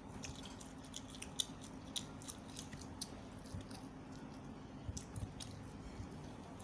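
A person chewing pan-roasted shrimp with her mouth closed: a scatter of short crunching clicks, over a faint steady hum.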